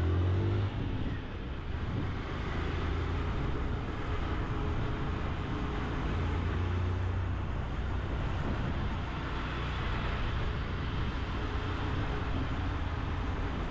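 Honda CG 160 Titan motorcycle's single-cylinder four-stroke engine running steadily while climbing a mountain road, a low engine hum under steady rush of wind and road noise.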